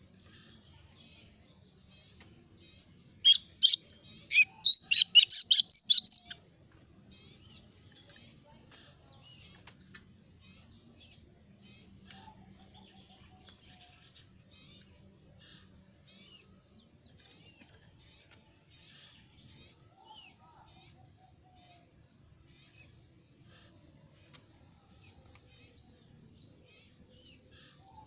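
A moulting jongkangan songbird chirping: a quick run of about ten loud sharp chirps around three to six seconds in, then many faint scattered chirps. Its voice is hoarse from the moult, and it gives short calls rather than a full song.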